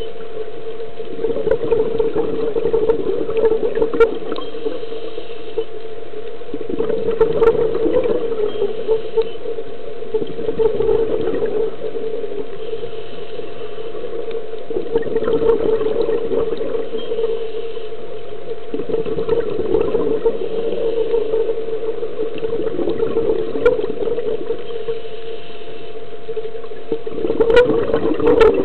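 Underwater scuba breathing through a regulator: a rush of exhaled bubbles every three to four seconds, over a steady low hum.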